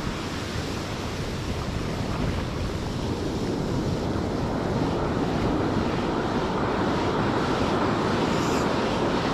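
Ocean surf washing onto a sandy beach, with wind on the microphone; the wash grows gradually louder.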